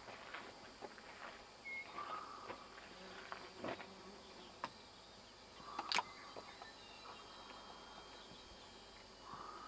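Faint outdoor ambience with a few short buzzes and scattered sharp clicks.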